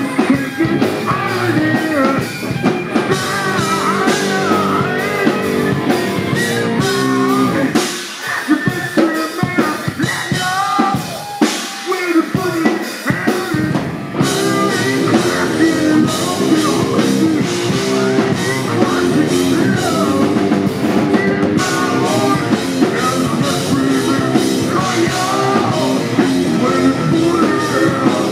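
Live heavy rock band playing: distorted electric guitars, a drum kit and sung vocals. About eight seconds in the bass and drums drop away for several seconds, then the full band comes back in.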